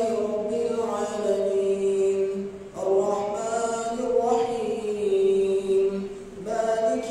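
A man's voice reciting the Quran in a slow, melodic chant during taraweeh prayer. Long notes are drawn out, with short pauses for breath about three seconds in and again near the end.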